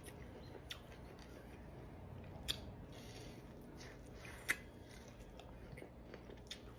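A person eating a Cajun shrimp boil: faint chewing with a few short, sharp crunches or clicks, the loudest two about two seconds apart.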